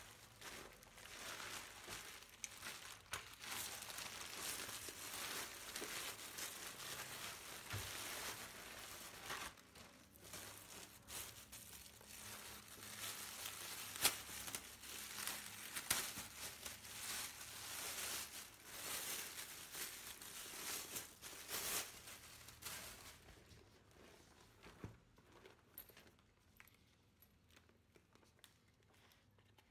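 Plastic courier mailer and clear plastic wrapping crinkling as they are handled and pulled open by hand, with one sharp click about fourteen seconds in. The crinkling dies down to a few soft rustles and taps near the end.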